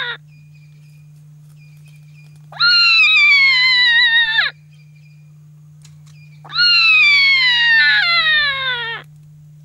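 Jackal pup howling: the tail of one howl at the start, then two long howls of about two seconds each, each leaping up and then sliding down in pitch. A faint steady low hum runs beneath.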